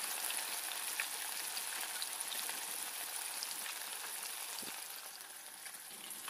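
Fish pieces frying in hot oil in an iron kadhai: a steady sizzling hiss with scattered small crackles, dropping a little in level near the end.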